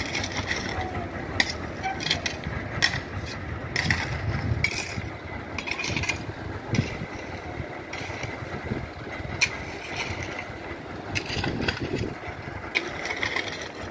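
Footsteps crunching on gravel and grass, irregular crunches over a low rumble.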